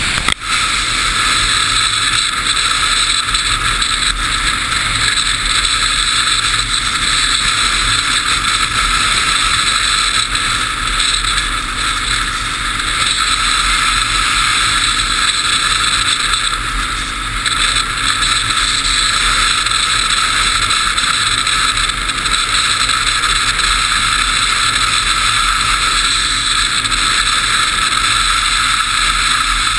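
Motorcycle riding at steady highway speed: steady wind noise over the camera's microphone, with the engine running underneath.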